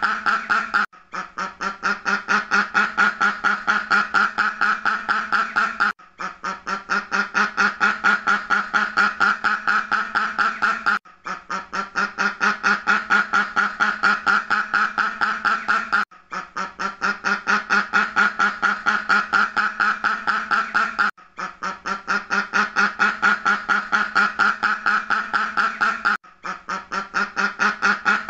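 Duck quacking in a rapid, steady run of nasal quacks, several a second. The same run of about five seconds repeats over and over, each time after a brief break, and swells up over its first second.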